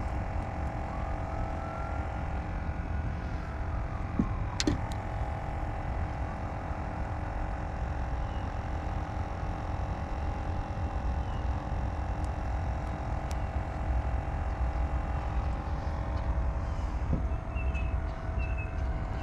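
A small boat motor running steadily, a low rumble with a steady hum over it. A couple of sharp clicks come about four seconds in, and a few short high chirps near the end.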